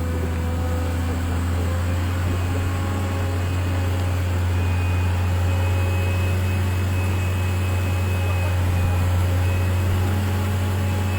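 Steady low machine hum, as of an engine or machinery running at a constant speed, with a faint high whine joining about four and a half seconds in.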